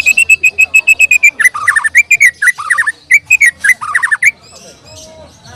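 White-rumped shama (murai batu) singing: a fast run of clear, evenly repeated notes, then varied whistled phrases with falling notes, stopping about four seconds in.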